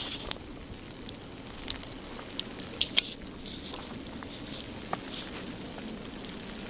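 Falling wet snow pattering: irregular light ticks scattered over a steady hiss, the loudest couple of ticks about three seconds in.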